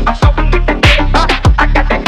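Background music with a heavy electronic beat: deep bass drum hits about every 0.6 seconds.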